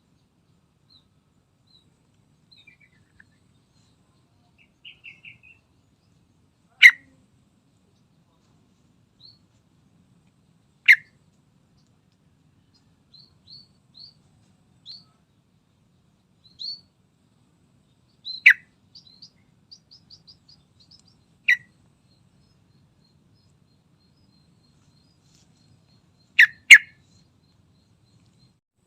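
Sooty-headed bulbul (trucukan) calling: loud, very short sharp notes every few seconds, two in quick succession near the end, with soft high chirps and brief trills between them.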